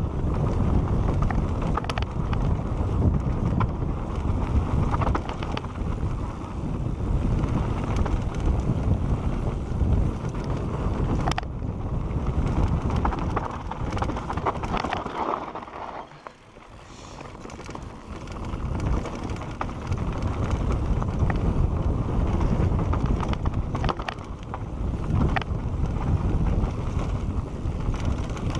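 Wind rushing over a GoPro's microphone as a Santa Cruz Bronson mountain bike descends a dirt singletrack at speed, with tyre rumble and scattered knocks and rattles from the bike. The rush dies down briefly a little past halfway, then builds again.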